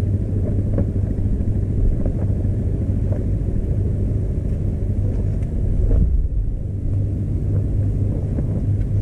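Steady low engine rumble, an even hum that does not rise or fall, with a few faint ticks over it.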